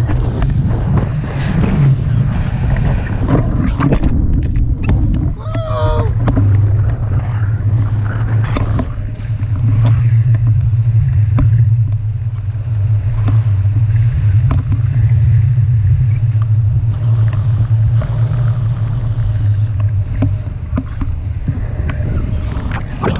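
Wind rushing over the camera microphone of a paraglider in flight: a steady low rumble with gusty buffeting. About six seconds in, a brief wavering high-pitched sound rises over it.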